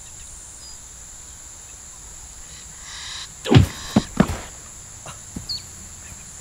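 Steady chirring of insects in the background. About three and a half seconds in comes a loud sound that drops steeply in pitch, followed by a quick run of thumps as a man is knocked to the ground, with a couple of fainter knocks after.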